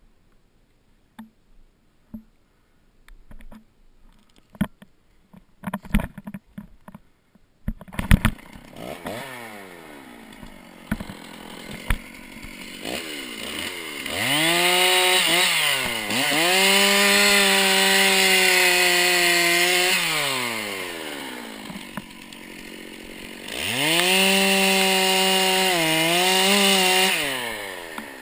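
Scattered crunches and rustles, then about eight seconds in a two-stroke chainsaw starts and idles. It is run up to full throttle twice for several seconds each, with brief dips in pitch while held high, and drops back to idle between and after.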